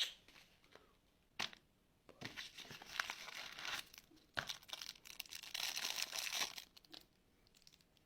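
Crinkly material being handled and torn: a sharp click, another a little over a second later, then two stretches of rustling and tearing, about a second and a half and two seconds long.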